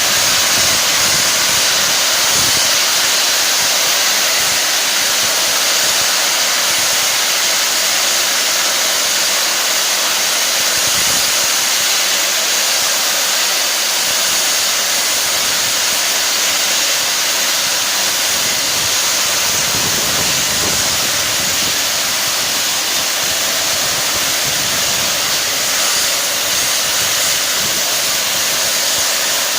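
Steam hissing steadily from the Peppercorn A1 Pacific steam locomotive 60163 Tornado, typical of steam blowing off while it stands.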